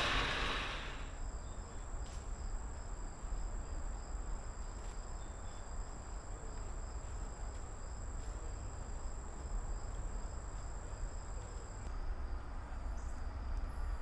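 Insects trilling in a steady, high-pitched drone that breaks off about twelve seconds in, over a low, even background rumble.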